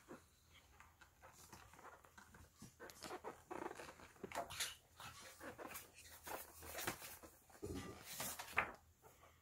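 A toddler's hands turning and patting the stiff pages of a large picture book: a string of short paper rustles, flaps and soft taps.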